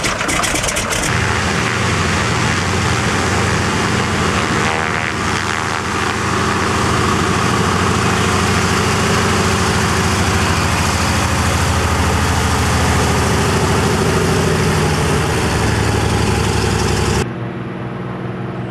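De Havilland Beaver's nine-cylinder Pratt & Whitney R-985 radial engine and propeller running steadily and loudly, with the power coming up about a second in as the floatplane moves off across the field. Near the end the sound drops suddenly to a quieter, more distant engine hum.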